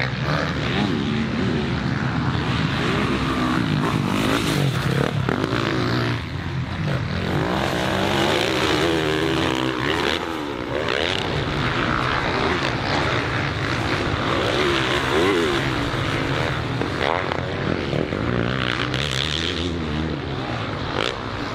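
Motocross bikes racing, their engines revving up and easing off, the pitch rising and falling again and again as riders work the throttle over jumps and through corners.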